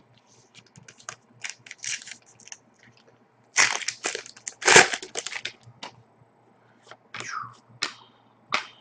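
Crinkling and rustling of a foil trading-card pack wrapper and the cards being handled, in irregular bursts with the loudest crackles near the middle.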